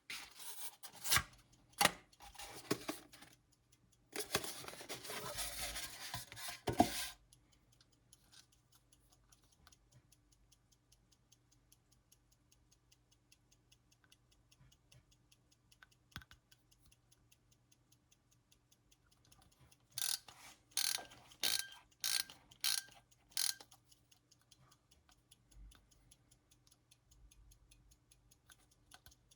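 Soviet AChS-1 mechanical aircraft cockpit clock being handled. A few clicks are followed by about three seconds of dense ratcheting as its knob is turned. Then the movement ticks faintly and evenly, broken about two-thirds of the way through by a run of about six sharp clicks from its knob.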